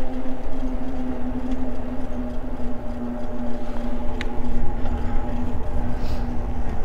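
Eahora Juliet electric bike in motion on pavement: a steady whine with overtones from its drive and tyres, easing slightly in pitch, over low wind rumble on the microphone. A faint click comes about four seconds in.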